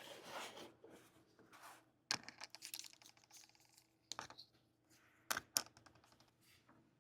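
Craft-supply packaging being handled during an unboxing: a short rustle at the start, a quick run of light clicks and taps about two seconds in, then a few sharp single clicks.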